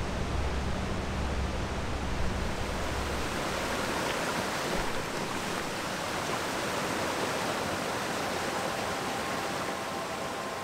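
Steady rush of a small mountain stream running over rocks, with a low rumble underneath for the first three seconds.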